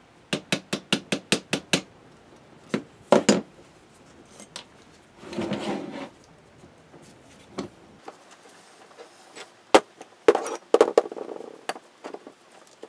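Small hammer tapping lightly on a drill held in a screw hole, spot-marking hole positions on the spacers: a quick, even run of about five taps a second for the first two seconds, then two more taps. Later, a scrape and scattered metal clicks and clinks as the clamped parts are handled.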